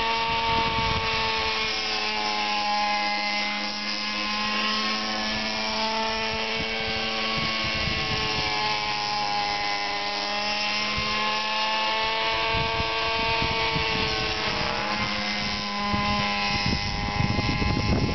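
Align T-Rex 600 RC helicopter, converted to run on a Zenoah 20 two-stroke petrol engine, in flight: a continuous engine-and-rotor buzz whose pitch slowly rises and falls as it manoeuvres.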